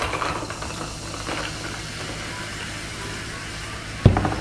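Cola poured from a plastic bottle into a glass of ice at the start, then the soda fizzing in the glass as a steady hiss. A single sharp knock on the table about four seconds in.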